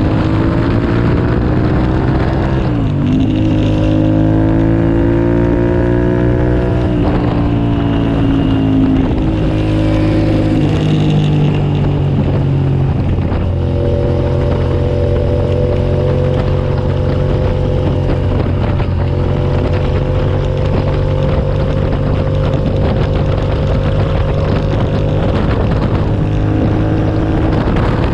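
2007 Suzuki SV650S's 645 cc V-twin engine at full effort on a race track. Its pitch rises and falls with throttle and gear changes, dropping sharply a few times early on, then holds at high revs for a long stretch before rising again near the end.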